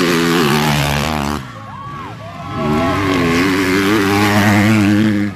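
Motocross bike engines revving hard as bikes pass, the pitch rising and falling. The sound drops away about a second and a half in, then builds again as another bike comes through.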